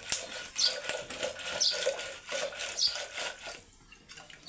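Wooden churning stick twirled back and forth between the palms in a steel pot of sweetened curd, clattering and rattling against the metal as the curd is churned into lassi. The clatter dies down near the end.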